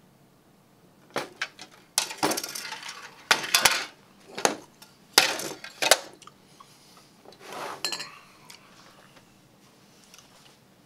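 Dishes clinking and clattering on a dinner table as plates and a ceramic cake stand are handled: a few sharp clinks, then several short runs of clatter, dying away near the end.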